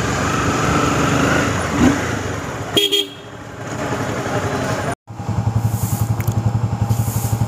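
Honda CBR250R's single-cylinder engine running as the bike rolls slowly through a busy fuel station, with a short horn toot about three seconds in. After a brief dropout near the middle, the engine idles with a steady, even pulse.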